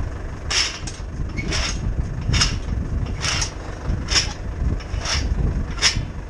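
Ursus tractor running steadily while pulling a seedbed cultivator with harrow sections and crumbler rollers through loose soil, with a regular rattle about once a second over the engine's steady sound.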